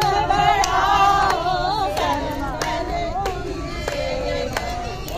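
A group of women singing together, clapping their hands in time, about three claps every two seconds.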